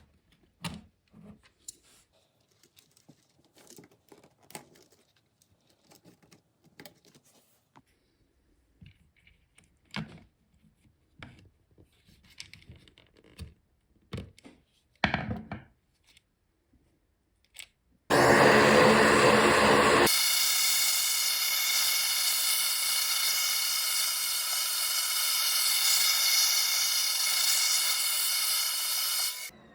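Scattered light clicks and knocks of plastic keycaps being handled on an Amiga keyboard, then about eighteen seconds in a small electric motor starts abruptly and runs loud and steady with a whine, its low rumble dropping away after a couple of seconds, until it cuts off just before the end.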